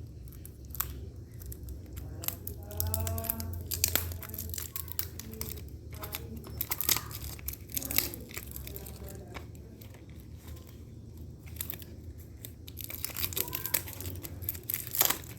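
Packaging being torn and crumpled by hand: irregular rustling, crinkling and sharp clicks, in bursts.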